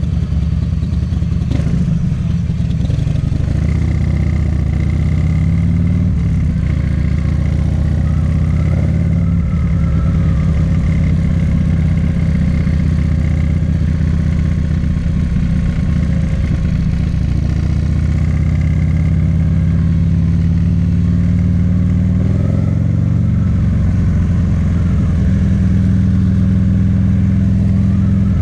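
Buell XB1200SS's air-cooled 1203 cc V-twin running through an aftermarket Jardine exhaust. The engine speed rises and falls, climbing about 22 seconds in.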